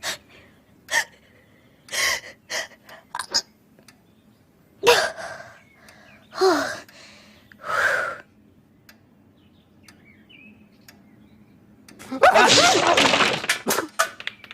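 A voice-acted cartoon sneeze: a few short, sharp sniffs, then three drawn-in "ah" gasps building up, then a loud, drawn-out sneeze about twelve seconds in.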